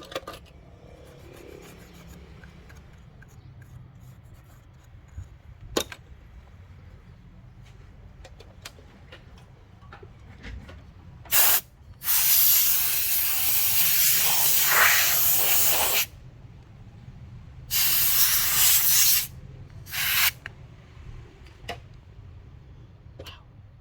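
An aerosol spray can hissing in bursts: one short spray, then a long spray of about four seconds, then two shorter sprays. Light taps and clicks of work on the phone come before the spraying.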